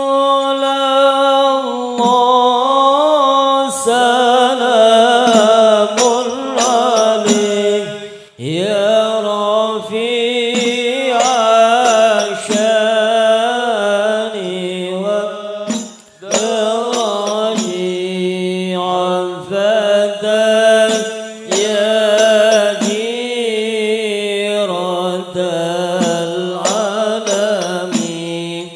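Male voices chanting an Arabic devotional recitation (maulid/shalawat) in a slow, ornamented melodic line, without instruments, with short breath pauses about 8 and 16 seconds in.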